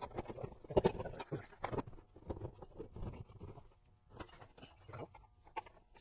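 Irregular light knocks and taps as a bent sheet-steel panel is handled and set against a tractor cab's metal frame for a test fit. The sharpest knocks come about a second in and again a little later.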